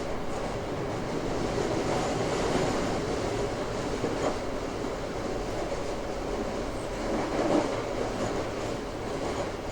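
Toei 5300 series subway train running between stations: steady wheel-on-rail rumble with some clickety-clack, heard inside the car in an underground tunnel. There is no clear rising or falling VVVF inverter whine, and the noise swells briefly about seven and a half seconds in.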